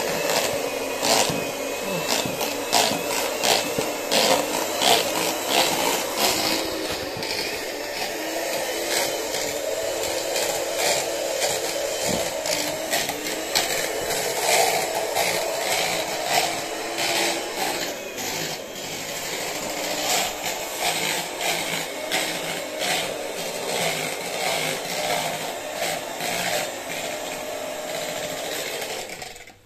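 Handheld electric mixer whisking egg white and sugar into a thick glaze in a plastic jug: the motor runs steadily, with frequent clicks over it, and stops near the end.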